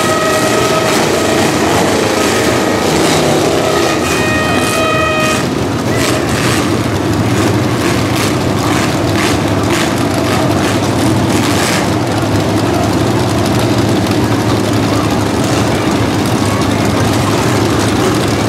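Demolition derby cars' engines running hard with a steady din of noise, as a horn blows in the first second and again from about four seconds in. A quick run of sharp knocks and bangs follows, roughly two a second, fitting metal-on-metal crashes between cars.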